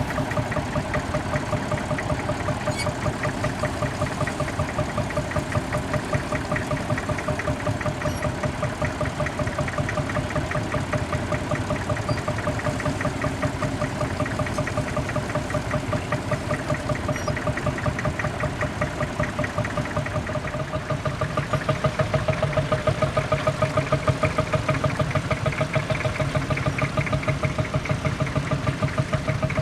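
Massey Ferguson 35X tractor engine running steadily with a rapid, even pulse, growing louder about two-thirds of the way in.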